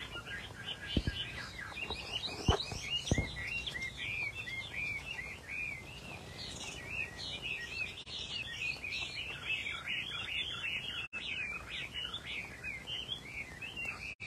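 Chinese hwamei singing a fast, unbroken run of varied high whistled phrases. A few sharp knocks in the first three seconds are the loudest sounds.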